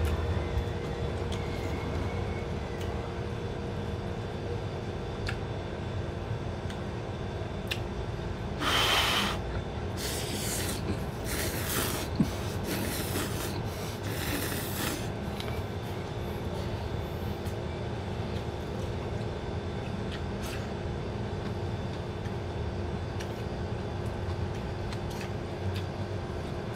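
Ramen noodles slurped off chopsticks: about five short noisy slurps in the middle, the first the loudest, over a steady low room hum.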